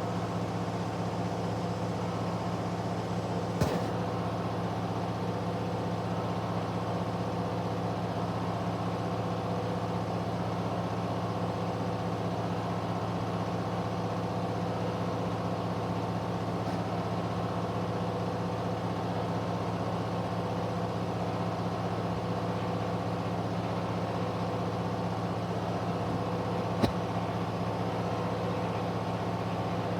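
Candy washing machine's drum spinning steadily at high speed in its final spin, about 1000 rpm after balancing, with a steady motor hum. Two short sharp clicks are heard, one a few seconds in and one near the end.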